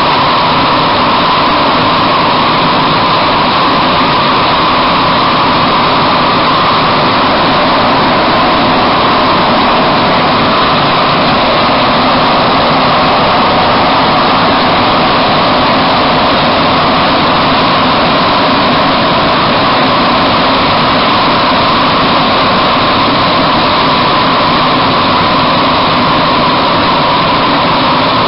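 MR-63 rubber-tyred metro car running steadily through a tunnel between stations, heard from inside the car: a loud, unbroken running noise that holds the same pitch and level throughout.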